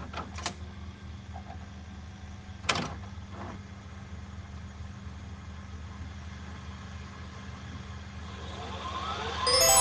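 Videotape cassette pushed into a VCR, with mechanical clicks as it loads: two small ones, then a louder clunk a few seconds in, over a steady electrical hum. Near the end a rising sweep leads into bright chiming tones.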